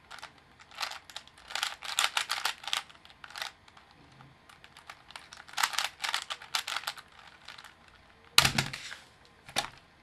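Black cube4you DIY 3x3x3 Rubik's cube being turned fast: rapid runs of plastic clicking and clacking as its layers are twisted, in bursts with short pauses. A heavier knock comes about eight seconds in.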